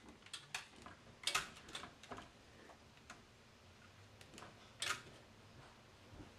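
A dachshund's claws clicking and scratching against a storm door, in irregular sharp clicks and short scrapes, loudest about a second in and again near five seconds in.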